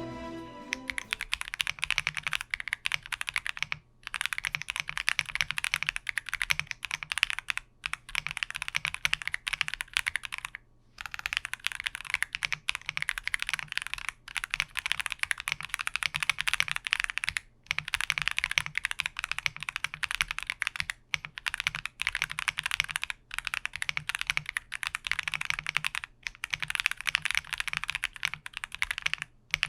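Fast, continuous typing on a Mod007 V3 VIA mechanical keyboard fitted with Akko V3 Cream Black Pro switches and Akko Cream MDA keycaps. The keys clack quickly, with a brief pause every three or four seconds.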